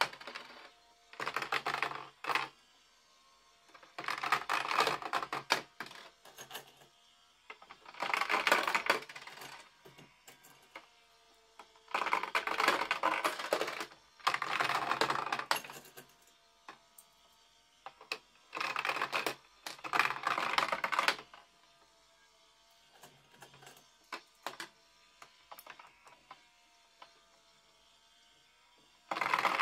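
Coins dropped into toy Tipping Point coin-pusher games, clattering down through the plastic pegs and onto the sliding shelves in rattling bursts of one to two seconds, one every few seconds, with scattered lighter clicks between.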